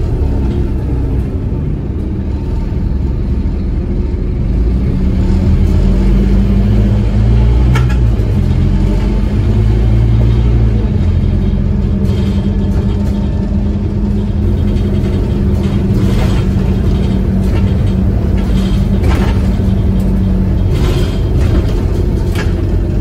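Inside a Scania N230UD double-decker bus: the five-cylinder diesel engine and drivetrain running with a heavy low rumble as the bus picks up speed over the first few seconds, then a steady drone while it cruises. A few short rattles from the bus body come in the second half.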